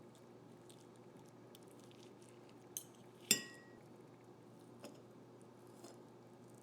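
Kitchenware clinking: a few light clicks and taps, and one sharp ringing clink about three seconds in, over a faint steady hum.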